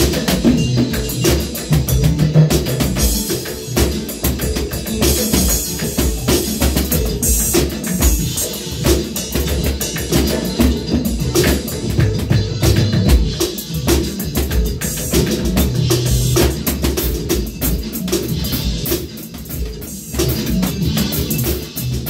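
Acoustic drum kit played in a steady groove, with bass drum, snare and cymbal hits, along with a recorded track that carries sustained bass notes.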